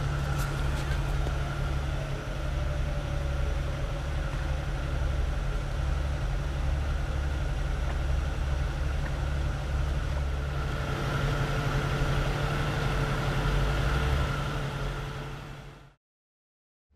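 Jeep engine idling steadily, a constant low drone that fades out about a second before the end.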